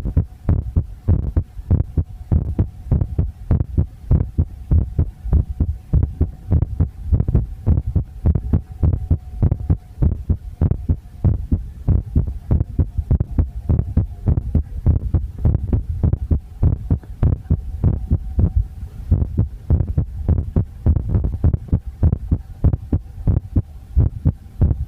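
Muffled low thumps coming fast and unevenly, several a second, over a faint steady hum.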